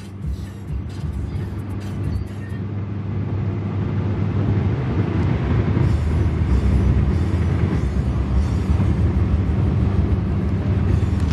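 Road and engine noise inside a moving car's cabin at highway speed: a steady low rumble that grows louder over the first several seconds, then holds level. A few light clicks are heard in the first couple of seconds.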